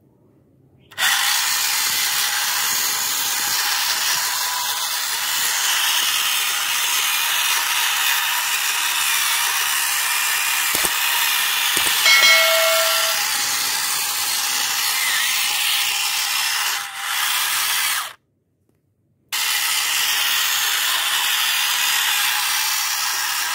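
A steady, even hiss that starts abruptly about a second in and drops out for about a second near the end. About twelve seconds in, a short chime from a subscribe-button animation sounds over it.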